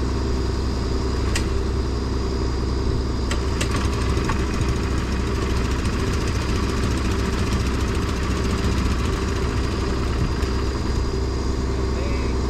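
Engine of a snow-clearing machine running steadily at a constant speed, with a couple of faint ticks in the first few seconds.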